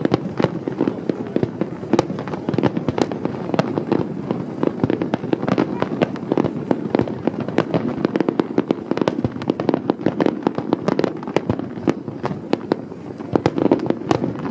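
Fireworks display: a dense, rapid barrage of bangs and crackling bursts, several a second, over a continuous low rumble.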